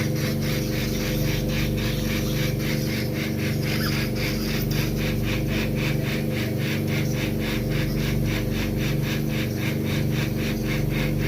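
Endoscopic sinus shaver (microdebrider) running as it cuts tissue to open the maxillary sinus: a steady motor hum under a fast, even rasping pulse.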